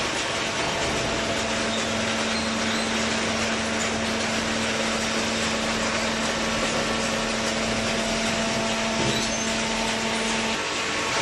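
Semi-automatic hydraulic carton baler running: a steady machine noise with a constant hum from its hydraulic power unit, the hum dropping out near the end.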